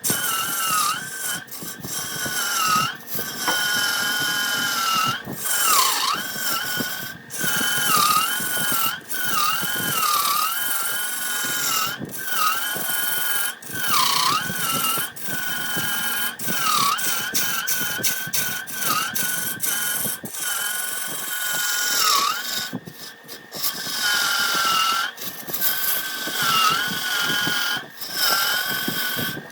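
Wood lathe running with a tool cutting into the spinning wood: a steady high motor whine that dips in pitch briefly every second or two, over a rushing cutting noise, with a few short breaks.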